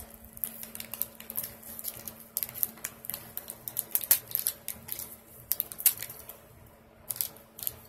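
Plastic snack wrapper crinkling and crackling in the hands as it is pulled open, in irregular quick clusters of sharp crackles.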